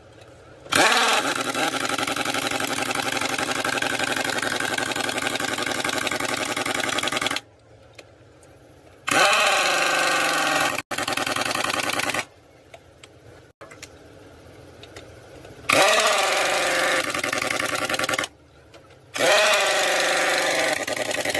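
A loud handheld power tool run in four bursts, each with a quick spin-up when it starts and a steady running sound until it is switched off abruptly; the first burst is the longest, about six seconds.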